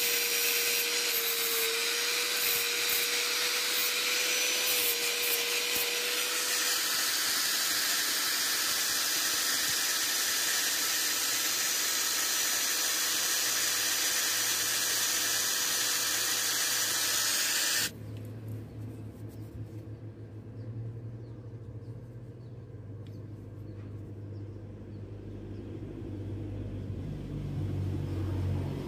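Electric angle grinder grinding a curved metal part: a loud, rough grinding noise with a steady motor whine that drops out about six seconds in, the grinding going on until it cuts off abruptly about two-thirds of the way through. After that only a much quieter low rumble.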